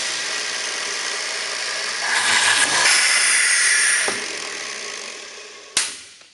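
Mepla Mat pneumatic hinge boring machine running, its drills boring hinge-cup holes into a wood panel. The sound is steady, louder for about two seconds in the middle, then fades away. A single sharp click comes near the end.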